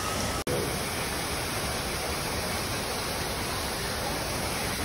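Steady, even rush of falling water from man-made waterfalls spilling down rock formations, cut off for an instant about half a second in.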